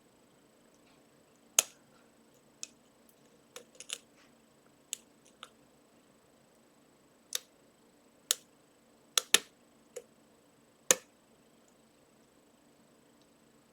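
Lock pick and tension tool working the pins of a Trioving pin-tumbler lock with trampoline spools: about a dozen sharp metallic clicks at uneven intervals as pins are lifted, set and dropped, stopping near the end.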